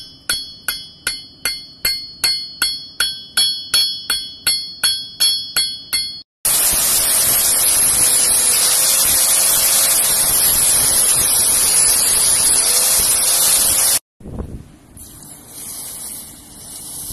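Hammer blows on red-hot steel on an anvil, about three ringing strikes a second for some six seconds. Then an angle grinder runs steadily on the blade with a faint whine and cuts off suddenly. After that comes a quieter hiss as the hot blade is quenched in a bucket of water.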